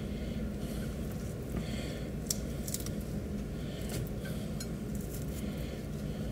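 Crisp oven-cooked thick-cut bacon being broken up by hand: scattered light crackles over a steady low hum.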